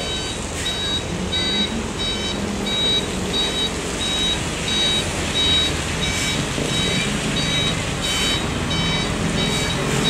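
A vehicle's electronic warning beeper sounding a high beep about twice a second, over the steady running of a heavy vehicle's engine.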